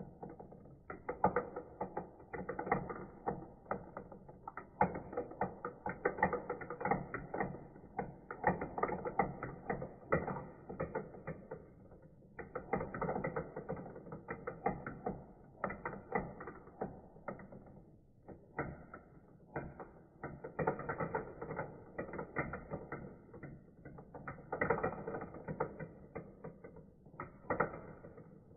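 Plastic marbles rolling and clattering through a plastic toy marble-run track: a dense, irregular stream of clicks and rattles, with a few short pauses.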